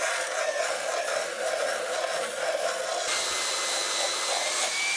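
Power grinder grinding a bevel into the fiberglass of a sailboat dodger around a hole, preparing it so new laminate can bond into the old: a steady grinding noise over the motor's whine. About three seconds in the grinding eases and a steady high whine comes through.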